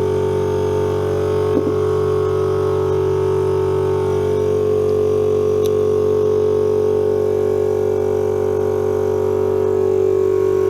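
SK11 SR-251 oil-lubricated piston air compressor running, a loud steady drone at one unchanging pitch, with a small knock about a second and a half in.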